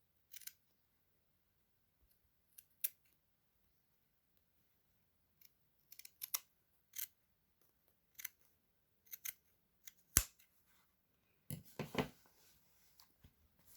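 Scissors cutting away excess fabric inside a jacket sleeve: a string of short, separate snips at uneven intervals, the loudest about ten seconds in.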